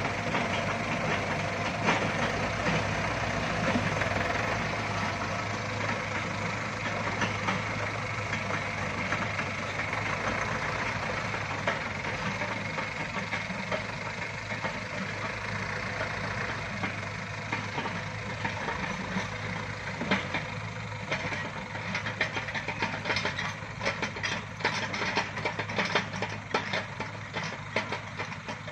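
Yanmar mini excavator's diesel engine running steadily as it digs, with scattered clicks and knocks that grow more frequent in the last third.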